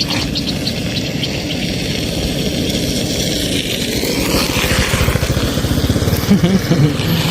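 A small engine running steadily, a little louder in the second half.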